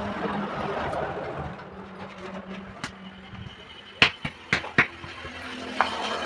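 A passing lorry's engine and tyre noise, fading after about three seconds; then four sharp knocks in quick succession about four seconds in.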